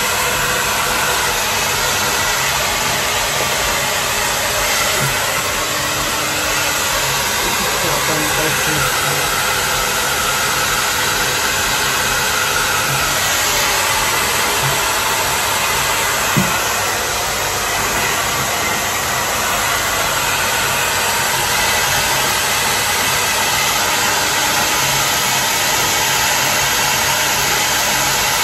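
Handheld hair dryer blowing steadily, drying a small dog's wet coat, with one brief click around the middle.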